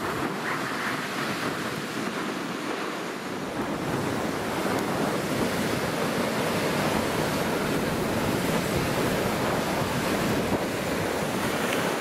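Ocean surf breaking on the shore, with strong wind buffeting the microphone; the low wind rumble grows heavier about four seconds in.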